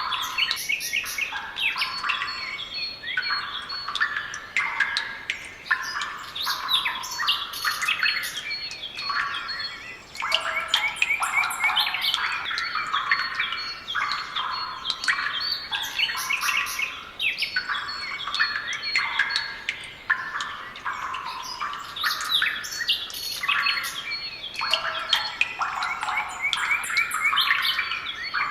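A dense chorus of small songbirds chirping and twittering continuously, many calls overlapping.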